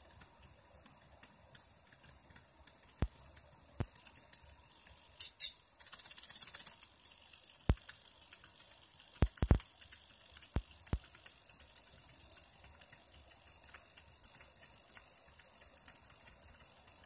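Small pen plotter drawing, its rack-and-pinion gear drive moving the paper bed: a faint steady motor whine with scattered sharp clicks and a short spell of rapid ticking about six seconds in.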